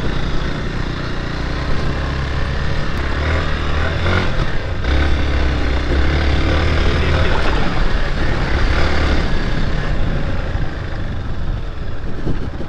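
Motorcycle engine running steadily, with a heavy low rumble.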